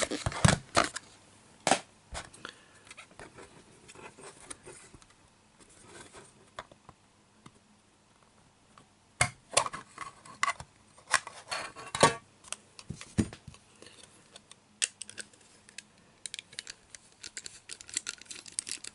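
Small plastic-and-metal handling sounds: a clear plastic display case and its black plastic base being taken apart, then a small screwdriver working the screw that holds a diecast model car to the base. Scattered clicks, scrapes and short rattles, busiest about halfway through.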